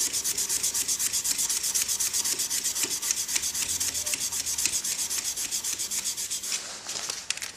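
240-grit sandpaper rubbed by hand along a wooden pen blank on the stopped lathe, in quick, even back-and-forth strokes several times a second that stop near the end. The lengthwise sanding takes away the circular sanding marks left while the blank was spinning.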